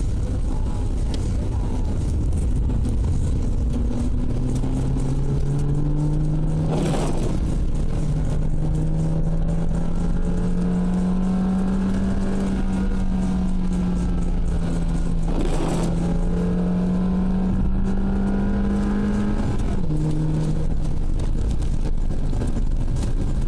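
Ford Puma's engine running under way, its pitch climbing slowly for several seconds, holding, then dropping suddenly near the end, over the steady hiss of tyres and rain on a wet road. Two brief swishes break in, about eight seconds apart.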